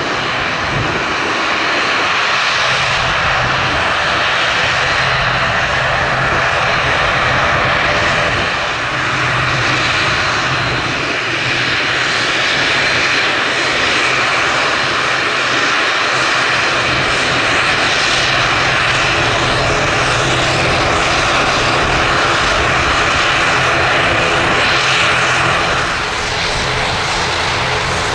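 Airliner's engines running steadily as it taxis, a constant drone with a faint high whine.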